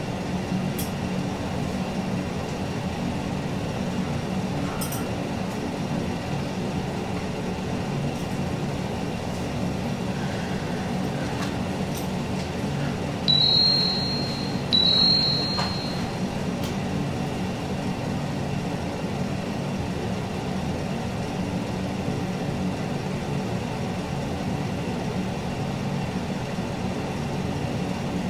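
A steady low hum, with two short high chimes about a second and a half apart near the middle, typical of a mobile phone's text-message alert.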